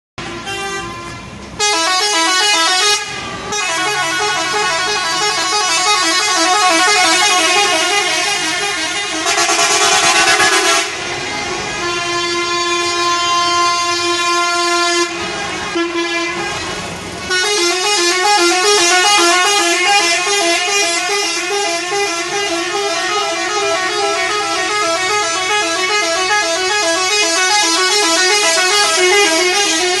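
Bus air horn sounding a fast, warbling run of alternating multi-tone notes. It comes in several long stretches with short breaks, and one stretch in the middle holds steady tones.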